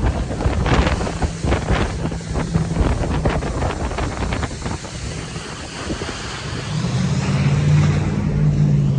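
Jet boat running on a river, its engine a low steady drone under heavy wind buffeting the microphone and rushing water. The buffeting is strongest in the first few seconds, and the engine grows louder near the end.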